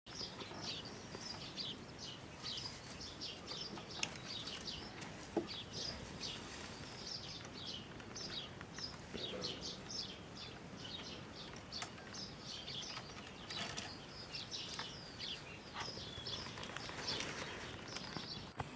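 Small garden birds chirping and twittering busily and continuously, with a few sharp clicks or knocks now and then.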